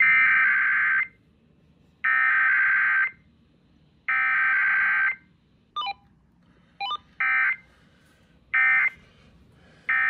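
Emergency Alert System digital SAME data bursts from an FM station's Required Weekly Test: three buzzy header bursts of about a second each, one second apart. After two brief blips, three short end-of-message bursts follow about a second and a half apart.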